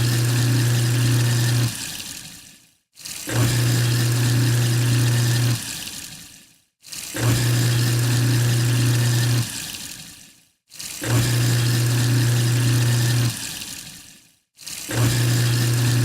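Sink garbage disposal unit running with water. Its motor hum starts, holds steady for about two seconds and cuts off, and the water noise fades after it. The same start-and-stop comes around about every four seconds, four times over, with a fifth start near the end.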